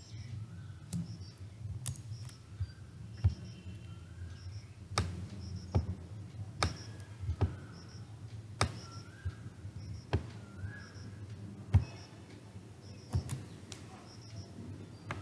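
A dozen or so sharp, irregularly spaced clicks from a computer mouse and keyboard being worked, over a low steady hum.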